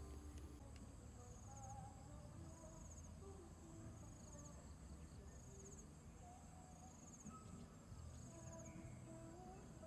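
Insects chirping, with short high trills repeating about once a second over a faint low rumble.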